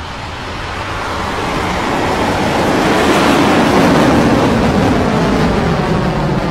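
Electron rocket climbing away after liftoff, its nine Rutherford first-stage engines making a broad rushing rumble that grows louder over the first four seconds and then eases slightly.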